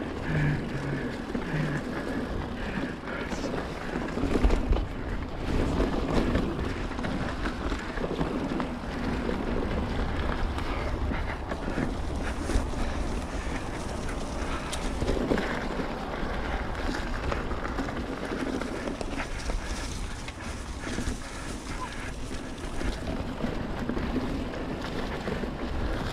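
Mountain bike rolling along a dirt trail: tyre noise and rattling knocks from the bike, with wind rushing over the microphone.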